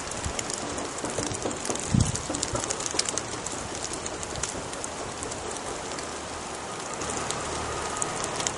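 Steady rain falling on woodland vegetation, with many small drop ticks and one dull thump about two seconds in.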